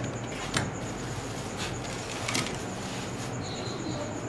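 Light kitchen handling sounds: a bowl set down on a tray and grated raw potato shreds tipped from a cloth into it, a few soft knocks and rustles over a steady background hiss with a faint high whine.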